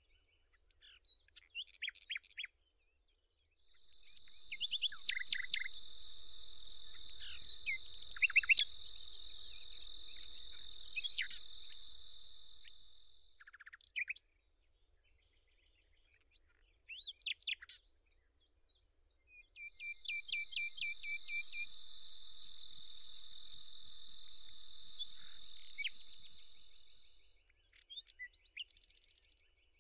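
Nature ambience: scattered short bird chirps, and a steady, evenly pulsed high trill of insect-like chirping. The trill comes in two long stretches, starting a few seconds in and again past the middle, each lasting eight to ten seconds.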